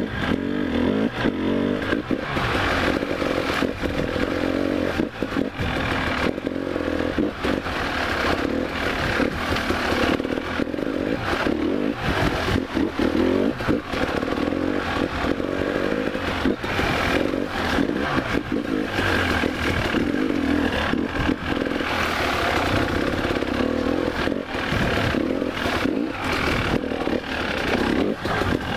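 Enduro dirt bike engine running on and off the throttle, its pitch rising and falling, with the bike and mounted camera rattling and knocking as it rides over a stony dirt track.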